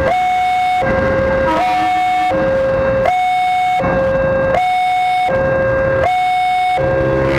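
Railway level-crossing warning alarm sounding its two-tone electronic signal, a lower and a higher tone alternating evenly about every 0.7 s, which marks the crossing as closed to traffic. Near the end a deeper droning tone joins in.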